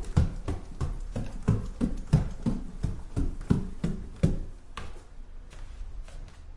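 Footsteps walking at a steady, brisk pace, about three steps a second, each one a low thud. The steps grow fainter after about four seconds.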